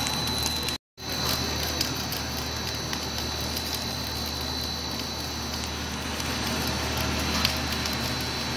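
Corn puff snack extruder running steadily, with a low hum, an even mechanical hiss and a steady high-pitched whine, while puffed corn comes out in a continuous rope. The sound cuts out completely for a moment just under a second in.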